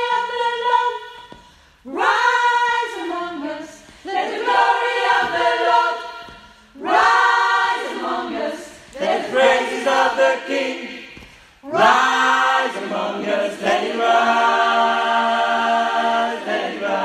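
Men's choir singing a cappella in harmony: several sung phrases with short breaks between them, ending on a long held chord.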